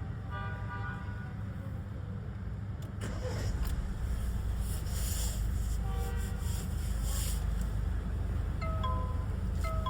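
Mahindra Scorpio N's 2.2-litre four-cylinder diesel engine running steadily, growing louder about three seconds in. A short electronic chime sounds repeatedly over it, most often near the end.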